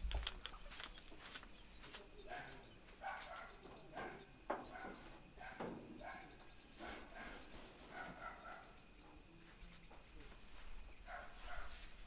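A cricket chirping in a fast, even, high-pitched pulse, with faint shuffles and soft knocks of people moving about; one knock about four and a half seconds in is the loudest.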